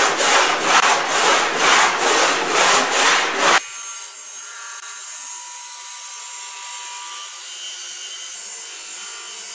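Crosscut saw cutting through a wooden timber, rasping back-and-forth strokes at about two to three a second. About three and a half seconds in the sawing cuts off abruptly and gives way to a quieter, steady table saw running with a faint whine.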